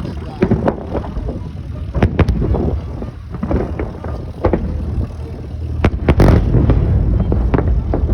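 Fireworks salute going off: a series of sharp bangs at irregular intervals over a low rumble, with a dense burst of bangs about six seconds in.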